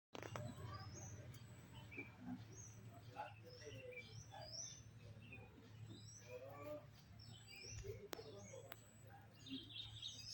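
Birds chirping: many short, high calls, some rising and some falling, scattered throughout over a steady low hum.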